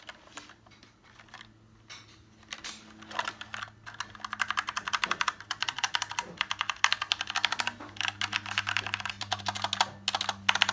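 Typing on a budget mechanical keyboard with brown tactile switches: a few scattered keystrokes, then a fast, dense run of key clicks from about three seconds in. A low steady hum sits underneath.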